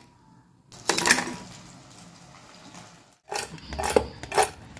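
Fried bondas dropping into and knocking about in a stainless steel bowl: a clatter about a second in, then a run of sharp knocks and rattles with a dull thump near the end.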